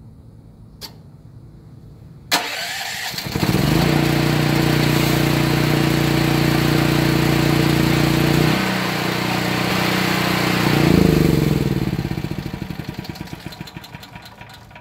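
Electric-start portable generator started by an Arduino relay sequence. A relay click comes first. The starter engages with a sharp clack and cranks for about a second, then the engine catches and runs steadily. The engine note drops about halfway through as the choke actuator opens the choke, then surges briefly near the end and winds down with slowing pulses.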